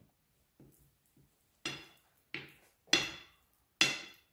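Metal spoon clinking against a ceramic plate while pressing sticky honey-coated struffoli into a ring: a few faint taps, then four sharp ringing clinks in the second half, the last two the loudest.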